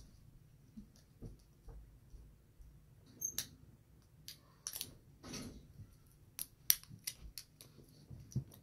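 Plastic wrapping on an L.O.L. Surprise toy ball crackling and snapping as fingers pick and peel it open, in scattered short clicks and crinkles, a few louder ones after the first three seconds.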